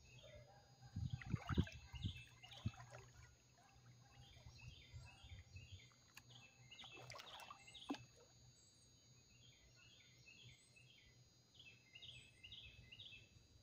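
Birds singing at a distance over faint outdoor ambience, in short repeated chirping phrases. A few low thumps come about one to three seconds in.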